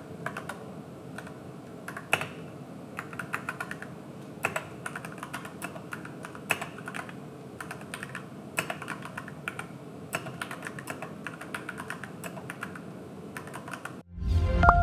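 Typing on an AKKO 3061S Tokyo R2 60% mechanical keyboard with yellow switches and PBT keycaps: a steady, irregular clatter of keystrokes with occasional louder key presses. The typing cuts off about a second before the end, when music comes in.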